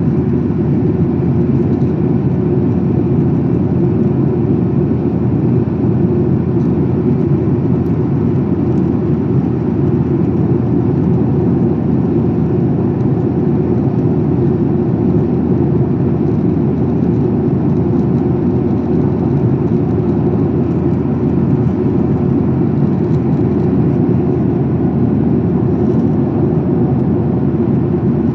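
Steady cabin noise inside a Boeing 737-800 climbing out after takeoff: the even drone of its CFM56-7B jet engines mixed with the rush of airflow past the fuselage. The noise is heaviest in the low range and stays the same throughout.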